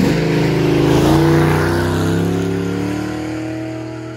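Chevy C10 pickup with a swapped-in 454 big-block V8 driving past. The engine note drops in pitch as it goes by, then climbs steadily as it accelerates away and fades.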